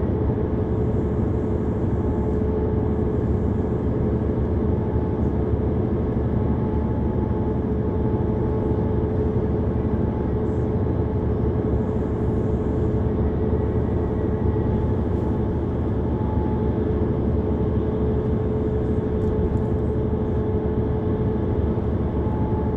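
Inside a moving city bus: steady engine hum and road noise, with a constant droning tone running through it.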